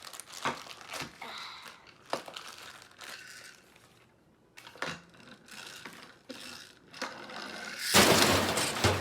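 Plastic blind-bag wrapper crinkling and tearing as a mystery toy pack is opened, in a run of short crackles, with one loud burst of about a second near the end.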